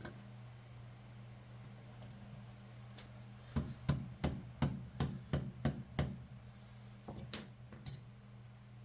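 A quick series of about eight sharp taps or knocks, roughly three a second, then a few lighter ones, over a steady low hum.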